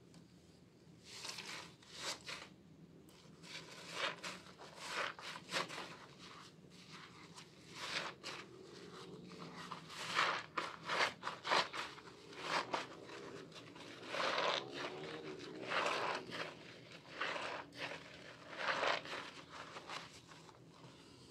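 Soap-soaked sponges being squeezed in thick lather by hand, giving a run of wet squelches and crackles, one every second or so.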